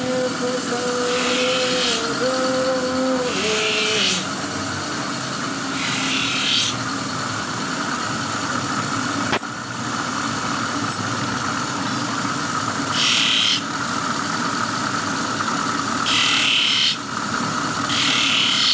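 Motor-driven grinding wheel running steadily while a steel scissor blade is pressed against it in short strokes; about six separate bursts of grinding, each under a second. A whining tone that steps in pitch sounds through the first four seconds.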